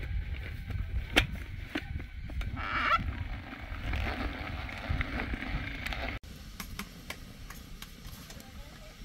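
Hand-crank mini food chopper being worked, with a few clicks and then its blades whirring and chopping inside the bowl for a few seconds. The sound cuts off abruptly about six seconds in, leaving a quieter low rumble.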